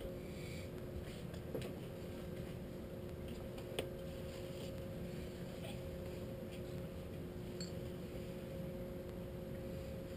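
Boat engine idling: a steady low rumble with two steady hum tones over it, and a single sharp tick about four seconds in.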